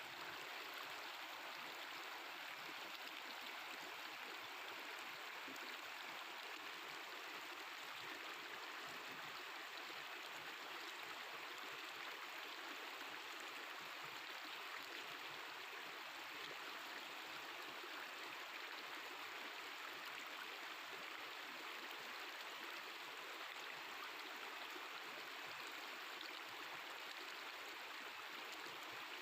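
Mountain river flowing: a steady, babbling rush of water with no breaks.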